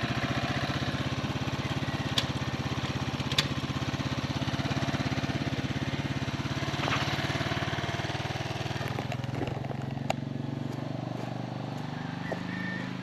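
Rusi Macho 175's single-cylinder four-stroke engine idling steadily, with a few sharp clicks over it. The idle grows slightly fainter after about nine seconds.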